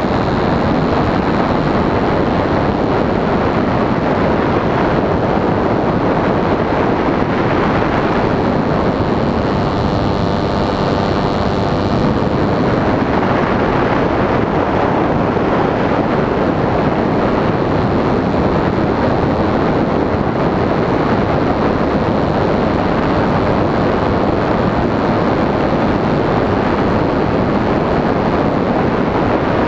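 Small RC airplane in flight with its Ohlsson & Rice Compact III two-stroke gasoline engine and propeller running steadily, heard from the wingtip with airflow rushing over the microphone. An engine tone stands out briefly about ten seconds in.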